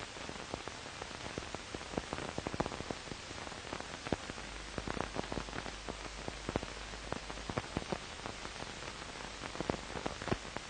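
Steady hiss with irregular crackles and pops, the surface noise of an old film soundtrack; a low hum joins about four and a half seconds in.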